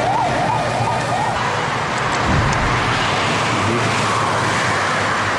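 Emergency vehicle siren rising and falling in pitch quickly and stopping about a second in, over a steady rumble of vehicle engines and street noise.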